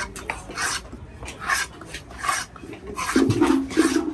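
Repeated rasping scrapes of a knife on a fish, about six strokes evenly spaced, typical of scraping the scales off a big paarai (trevally). About three seconds in, a brief low hum sounds under the scraping.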